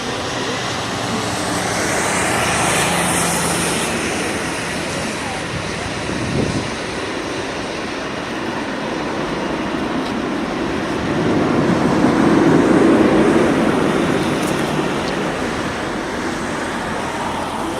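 Jet airliner engines, a loud steady rushing that swells twice: brighter and higher about two to three seconds in, then deeper and louder around twelve to thirteen seconds in.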